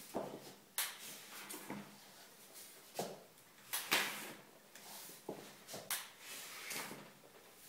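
Slow, uneven steps of a person walking in full-length leg braces: shoes and brace frames knocking and scuffing on a wooden floor, about one knock a second.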